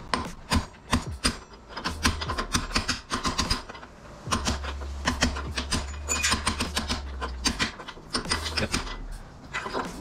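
Ball-peen hammer tapping a steel pin punch in quick runs of light metallic taps, several a second, with short pauses between runs, working around the edge to drive out the lower headset cup.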